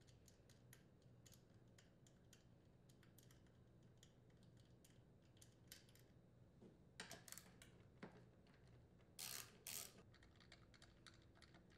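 Near silence with faint, scattered small clicks and taps of metal parts being handled on the tiller's aluminium engine flange, a little cluster about seven seconds in and two short scrapes about nine and a half seconds in.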